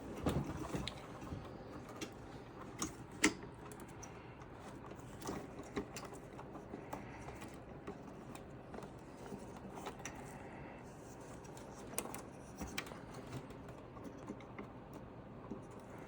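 Scattered small clicks and taps of hands working on PC components, plastic and metal parts knocking and snapping, with a few sharper clicks in the first few seconds and again around twelve seconds in.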